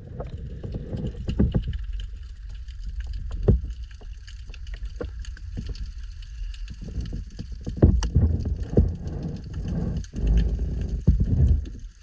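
Water heard through a submerged camera: a muffled low rumble and sloshing that swells several times, loudest about eight seconds in and again near the end, with many faint clicks and crackles scattered through it.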